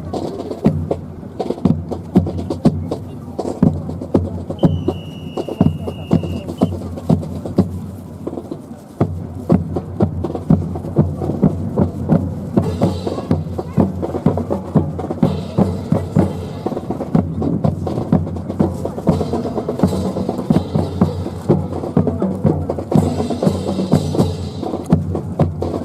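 Rifle drill team at work: a steady run of sharp knocks and slaps from rifles being spun, caught and struck, over music. A short steady high tone sounds about five seconds in.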